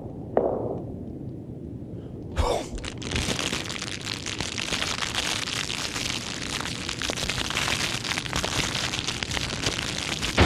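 Horror sound-effects recording: a single knock, then about two and a half seconds in a sharp crack that opens into a dense, steady crackling hiss.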